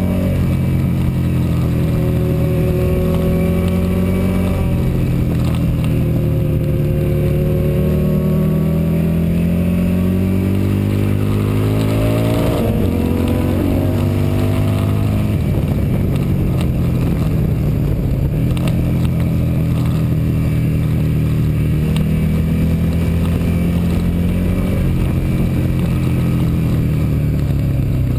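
Motorcycle engine heard from a handlebar-mounted camera while lapping a track: the revs climb through each gear and drop at the shifts and when slowing for corners.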